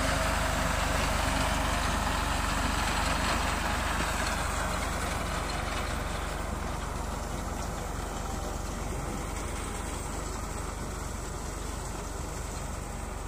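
Massey Ferguson 260 tractor's diesel engine running under load as it pulls a reaper binder cutting standing wheat. The sound is loudest at first and fades slowly as the tractor moves away.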